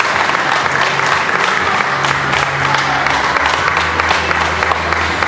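A group of people clapping, dense and uneven, over music with steady low notes.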